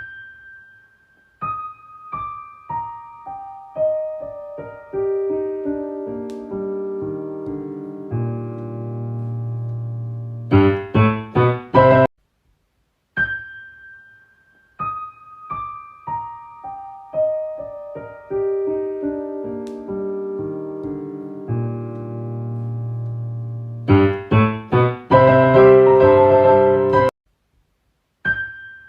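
Solo piano music: single notes step steadily downward into a held low chord, then a burst of rapid chords cuts off suddenly. The whole phrase plays twice.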